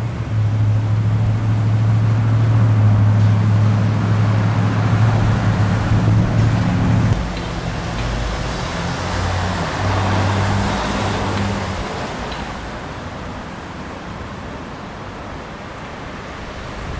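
A motor vehicle's engine running with a steady low hum that breaks up after about seven seconds, while a broad rushing noise swells to a peak about ten seconds in and fades away.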